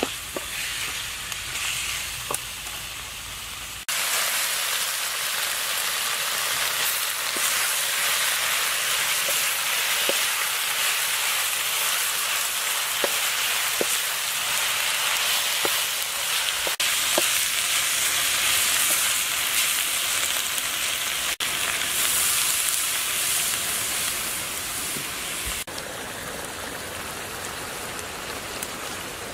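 Chunks of crocodile meat in chili paste sizzling in hot oil in a pan while being stirred with a wooden spatula, with small scraping ticks from the stirring. The sizzle turns sharply louder about four seconds in.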